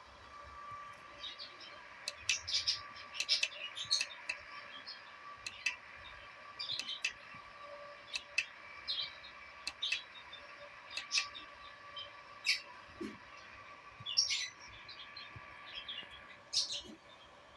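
Small birds chirping in short, quick notes, irregularly and repeatedly, over a faint steady hum.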